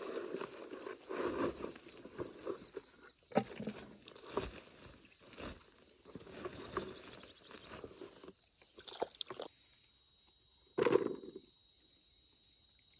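Irregular rustling and knocking, as of someone moving about and handling things, over a steady high insect chirping that turns into a fast, even pulsing trill in the second half. A louder thud comes about eleven seconds in.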